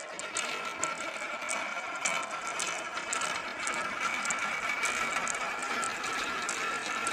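Marble run with marbles rolling and clicking along the track: a steady rolling whir with a few held tones, dotted with many small irregular clicks.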